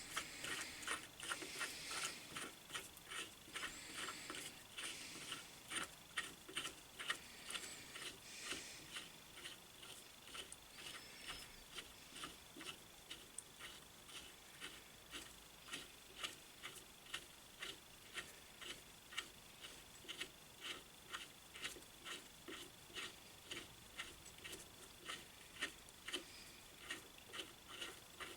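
Light, regular metallic ticking, about two to three clicks a second, from working the threaded adjusting and locking parts of an Atlas 10 lathe's fixed steady while its threads are cleaned and checked.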